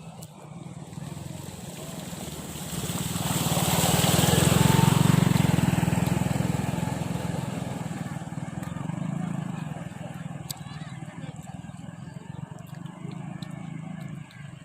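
A motor vehicle passing close by: its engine and road noise swell to a peak about five seconds in, then fade slowly away.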